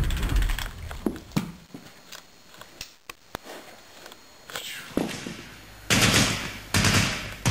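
Gunfire-like noise: a few scattered sharp cracks, then two longer rattling bursts near the end.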